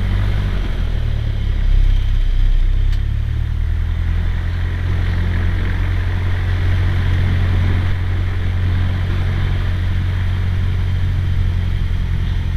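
Cessna 172's piston engine and propeller running steadily in a low drone, swelling briefly about two seconds in.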